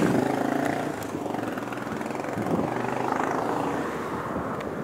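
Engine noise from a passing motor vehicle, loudest at the start and fading away.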